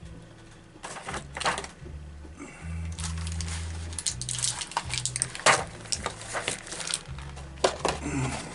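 Small hard objects being handled: a series of sharp clicks and clacks, as of ammo tins and metal slugs being picked up, opened and set down, the loudest about halfway through. A low hum starts and stops several times underneath.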